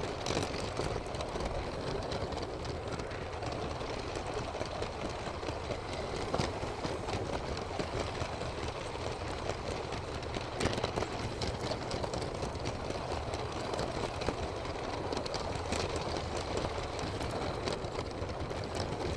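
Small electric motor of a LEGO train running steadily, with occasional light clicks over the plastic track.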